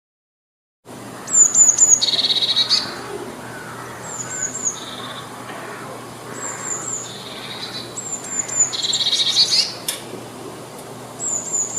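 Small songbird singing a repeated phrase, about five times: three or four quick, high, slightly falling notes, then a lower buzzy trill.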